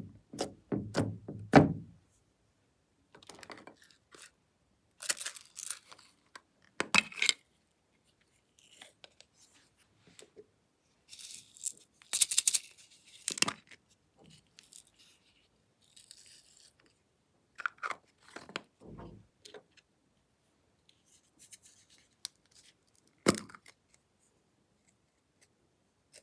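Hands pressing white glossy slime in a glass dish, squishing in the first two seconds, then scattered handling noises and a few sharp clicks as small plastic containers of glitter and slime are opened and handled, with a single loud click near the end.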